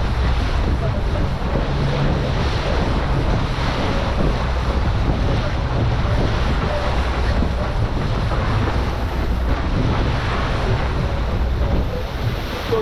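Boat engine running steadily under way, with heavy wind buffeting the microphone and water rushing past the hull.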